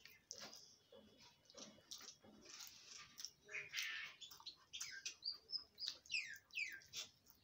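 A small bird chirping faintly, with a quick run of falling chirps in the second half. Under it are soft clicks of someone eating by hand.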